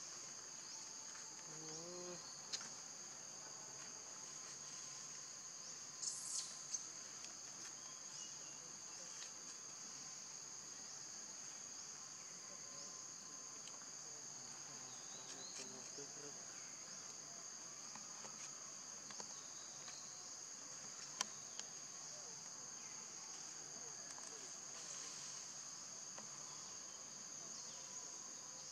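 Steady forest insect chorus, a continuous high-pitched buzzing, with a short faint call about two seconds in and a few sharp clicks and rustles.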